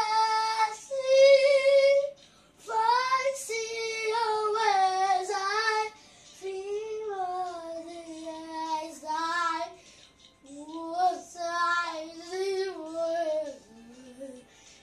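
A boy singing unaccompanied, in phrases of long held notes with a wavering pitch and short breaks between them.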